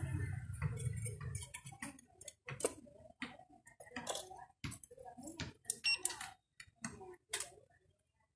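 Irregular sharp clicks and knocks as a small TV loudspeaker is handled and set down on a wooden workbench, with a metal tool tapping around its terminals. The clicks come thick in the middle and thin out near the end.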